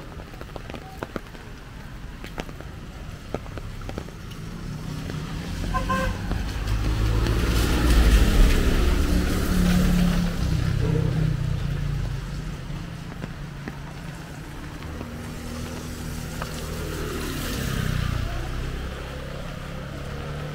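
A motor vehicle passes close on a wet road, its engine and tyre hiss swelling to a peak about eight seconds in, with a short horn toot just before. A second vehicle goes by more faintly near the end.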